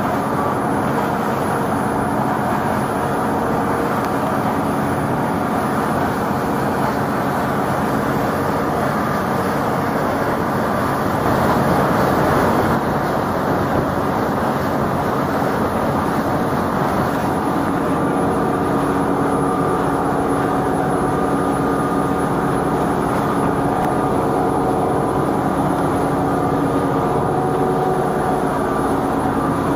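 A passenger boat's engine running steadily: a constant drone with a steady hum and a rushing wash under it, briefly louder about eleven seconds in.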